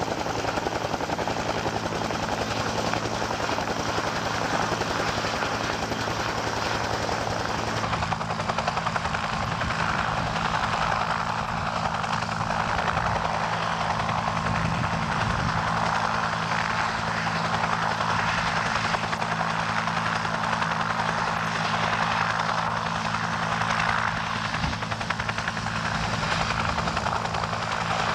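UH-1 Huey helicopter running on the ground, its turbine and two-bladed main rotor giving a steady, rapid beat. The sound shifts slightly about eight seconds in.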